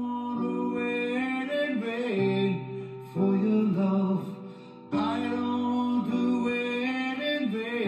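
Background music with guitar, a steady melodic track that drops away briefly just after halfway and then comes back in.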